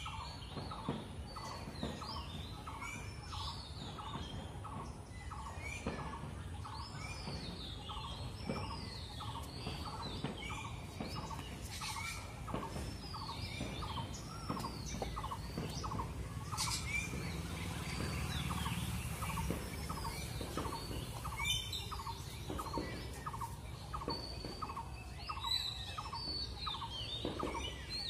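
Several birds calling: a steady run of short repeated calls, about three a second, under higher chirps that sweep downward.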